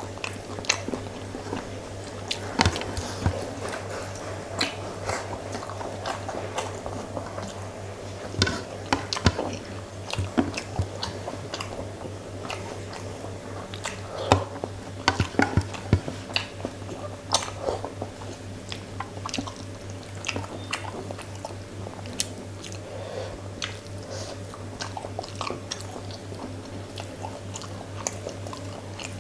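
Close-miked eating with the hand: wet mouth smacks and chewing of rice and fish curry, with fingers squishing rice through the curry on a plate. Many short wet clicks are scattered throughout, over a steady low hum.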